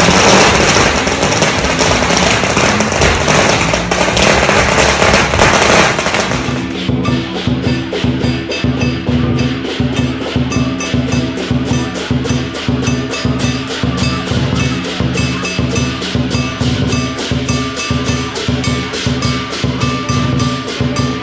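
Strings of firecrackers crackling in a dense, continuous rattle. About six and a half seconds in they cut off abruptly, and music with a quick, steady percussion beat follows.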